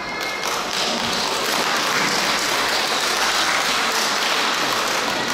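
Audience applauding, a steady dense clatter of many hands that starts as the speech ends.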